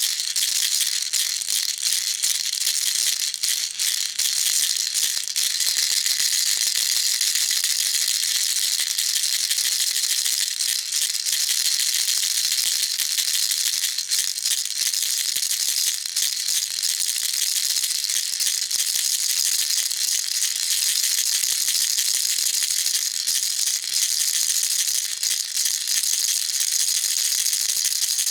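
Baby rattle shaken without pause: a dense, steady, high-pitched rattle.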